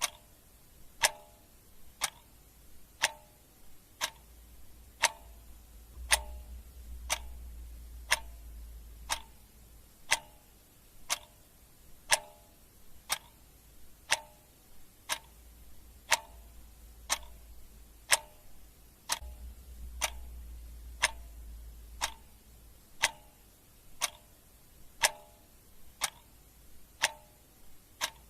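Clock ticking steadily, about one sharp tick a second, each with a brief ringing note. A faint low hum comes in twice behind the ticks.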